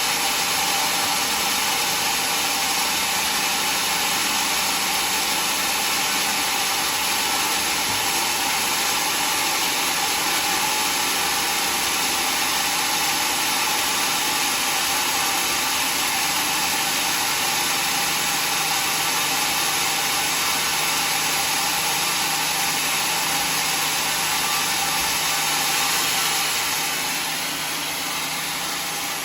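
Sawmill power saw running steadily, a loud even noise that eases off slightly near the end.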